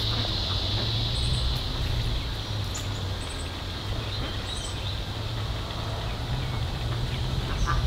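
Rural outdoor ambience: a steady high-pitched insect drone with a few short bird chirps, over a low steady hum.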